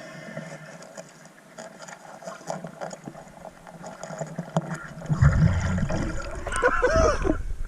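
Water sloshing and gurgling around a GoPro in the water: faint crackling at first, then a much louder rush from about five seconds in.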